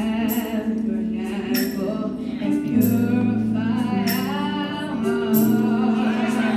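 Gospel song: a lead vocalist singing through a microphone with a choir, over sustained low instrumental notes, and a short high percussion hit about every 1.2 seconds.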